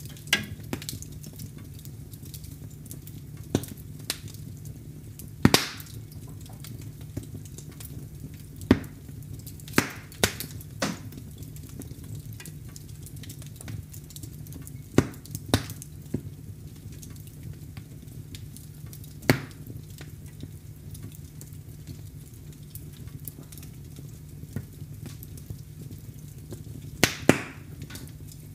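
Wood fire crackling in a fireplace: sharp, irregular pops and snaps, a dozen or so louder ones, over a low steady hum.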